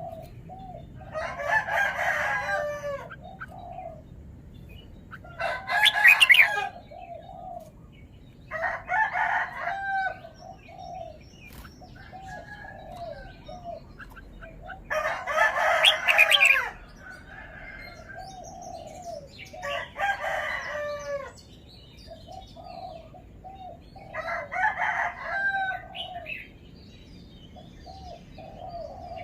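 Red-whiskered bulbul singing: about six short, loud phrases of chirping whistles, one every four to five seconds, with softer chirps in between.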